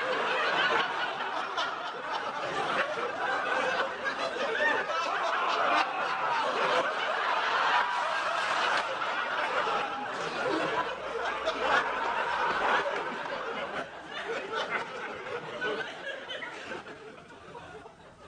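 Studio audience laughing: a long, sustained laugh from a crowd that dies away over the last few seconds.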